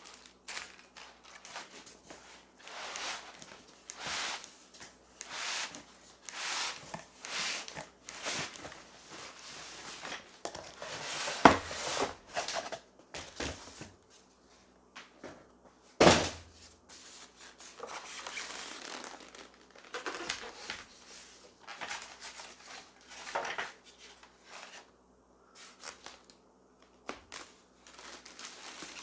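Cardboard box and styrofoam packing being handled as a sewing machine is slid out: repeated scraping and rustling of foam and cardboard, with two loud knocks about eleven and sixteen seconds in.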